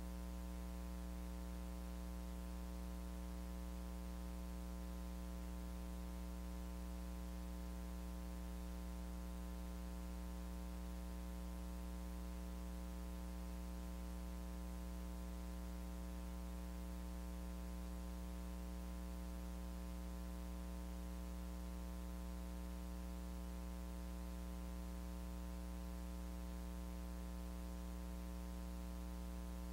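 Steady electrical mains hum with a buzzy stack of overtones and a constant hiss, unchanging throughout; no speech or other sound comes through.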